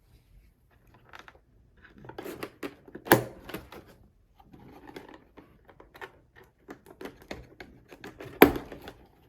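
Packaging being handled and opened: scattered clicks, taps and rustles of cardboard and plastic, with two sharp knocks, one about three seconds in and a louder one near the end.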